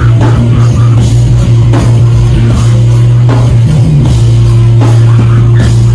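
Loud, distorted noise-rock played by a band: a heavy low drone held steady under irregular, crashing drum hits.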